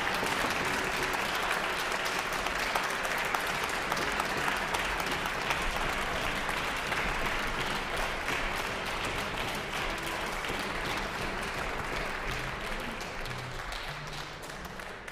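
Large hall audience applauding, a dense steady clapping that slowly thins and fades toward the end.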